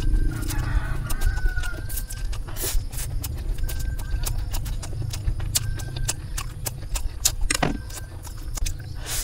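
Close-miked eating of spicy instant noodles: slurping strands in and chewing, with many sharp wet mouth clicks.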